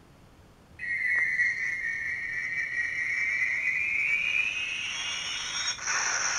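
Electronic sound effect from a Star Trek TNG Type 1 phaser replica's built-in speaker: a whine that starts about a second in and rises slowly in pitch for several seconds, then turns noisier near the end. The owner takes it for the phaser's self-destruct (overload) effect.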